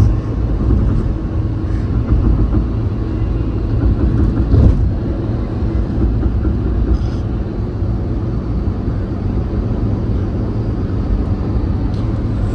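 Steady road and engine noise inside a moving car's cabin, with one brief louder bump about four and a half seconds in.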